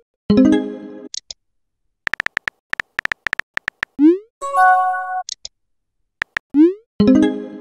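Texting-app sound effects: rapid keyboard-tap clicks, short rising swoosh send sounds, and synthesized message-alert tones, one shortly after the start and another about halfway through.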